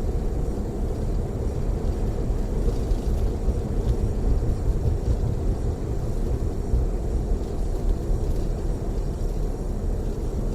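Steady low rumble of a tour coach running at freeway speed, engine and tyre noise heard from inside the passenger cabin.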